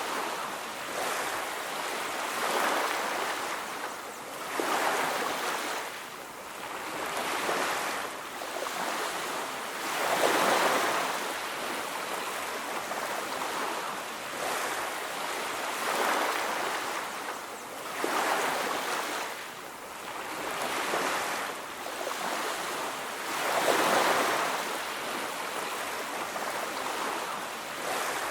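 Ocean surf washing onto a beach, a steady hiss that swells and falls back every two to three seconds as each wave comes in.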